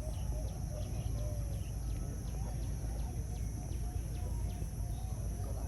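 Many zebra doves cooing at once, their short, curving coos overlapping without pause over a steady low rumble.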